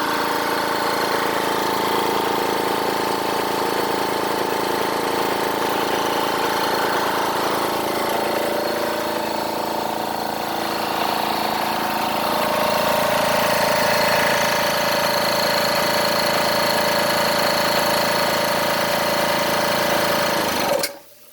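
Twin-cylinder, water-cooled 4500 psi PCP high-pressure air compressor running steadily under load, then cutting off abruptly near the end as its automatic shutoff trips at the preset pressure of about 4,000 psi.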